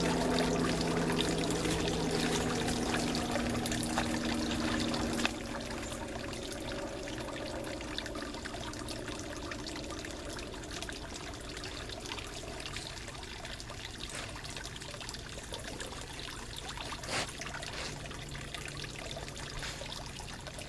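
Water trickling and pouring as the soft dirty-water bag of a Platypus GravityWorks gravity filter is dipped into a garden pond and filled. A steady low hum stops abruptly about five seconds in, leaving the water sound.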